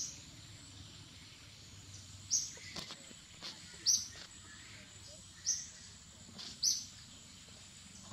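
A bird calling in short, sharp, high chirps, one about every second and a half, over a faint, steady, high-pitched hum.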